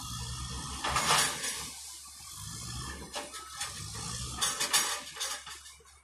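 Bulldozer working: a low, pulsing engine rumble with metallic clanking and rattling, loudest in two rough bursts about a second in and again near the end.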